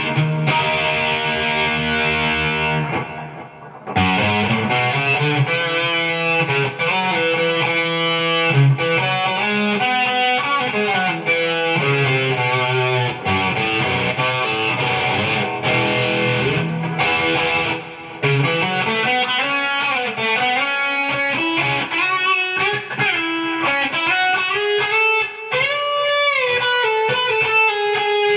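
Electric guitar played through distortion: a held chord rings and fades about three seconds in, then quick runs of single notes follow, with notes bending up and down in pitch near the end.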